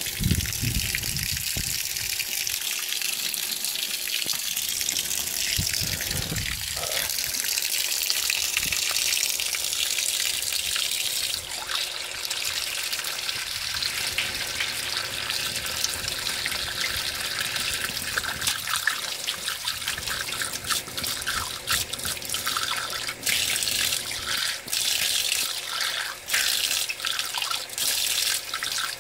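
Whirlpool Cabrio top-load washer filling for a deep-water cycle: a steady stream of water pouring from the fill spout into the tub of clothes and water. From about a third of the way in, the splashing turns uneven and choppy as a fabric-softener cap is held in the stream.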